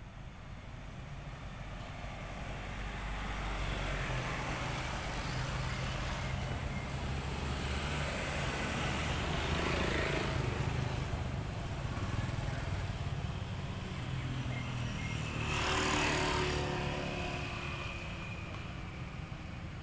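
Outdoor background noise: a steady low rumble with a hiss over it, swelling briefly about sixteen seconds in.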